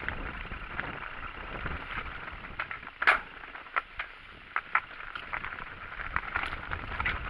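Mountain bike riding over a rough trail: steady rolling and rushing noise with frequent clicks and rattles from the tyres and bike, and one sharp knock about three seconds in.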